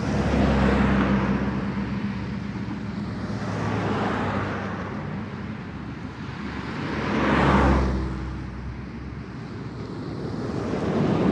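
Road noise of a Honda car being driven, heard from inside the cabin: a steady low engine and tyre drone with rushing noise that swells and fades several times, loudest about seven and a half seconds in.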